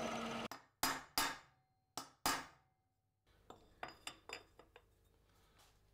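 Milling machine cutting metal with an end mill, stopping abruptly about half a second in. Then four sharp metallic clinks with short ringing, and later a few faint light clicks as a square steel tube is handled and set in the mill vise.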